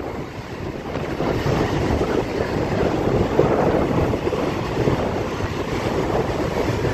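Strong, gusting wind buffeting the microphone, over the rushing noise of large lake waves breaking on the shore.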